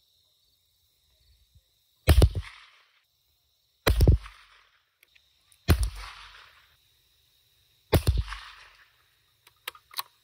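Rossi RB22 bolt-action .22 LR rifle fired four times, about two seconds apart, each a sharp crack that trails off briefly. Near the end come a few light clicks as the bolt is worked.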